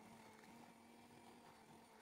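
Faint steady hum on one low tone, with no other events.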